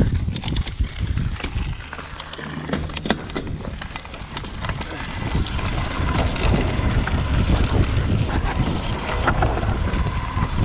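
Orange Stage 6 mountain bike descending a dirt singletrack: tyre noise and the rattle of the bike, with wind buffeting the microphone. Sharp clicks and knocks in the first few seconds, then the rumble grows louder from about halfway as speed picks up.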